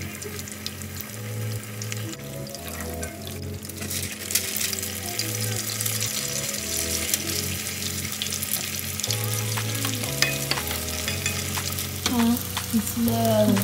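Egg rolls deep-frying in a pot of hot oil, a steady crackling sizzle, over background music with a bass line.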